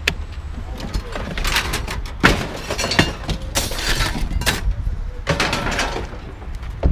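Scrap metal clattering and crashing in several bursts over a few seconds, over a steady low rumble.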